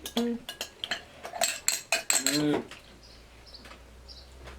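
Cutlery clinking and tapping against dishes in a quick run of sharp clicks, with two short vocal sounds from a person, then fading to a low hum after about two and a half seconds.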